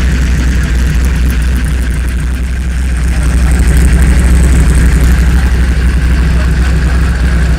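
Twin-turbocharged 5.0-litre Chevrolet 302 small-block V8 idling steadily with a deep, loud low hum.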